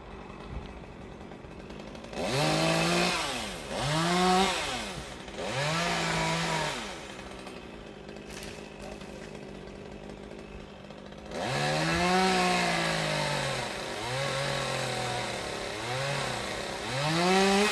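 Chainsaw revved up and down in short bursts, its pitch rising and falling with each: three bursts, then a quieter spell of about four seconds back at idle, then several more bursts.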